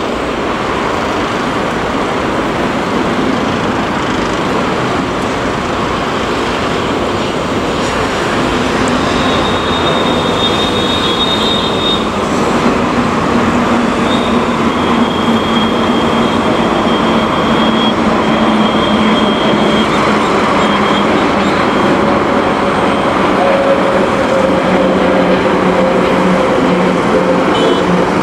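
Jet engines of an Airbus A320-family airliner climbing out after takeoff: a loud, steady roar that slowly grows louder, with low humming tones joining about a third of the way in and a faint high whine coming and going.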